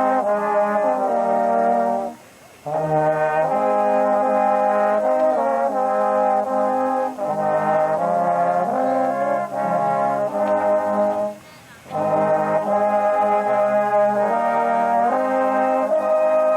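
Brass band playing a slow tune in held chords, with two short pauses between phrases.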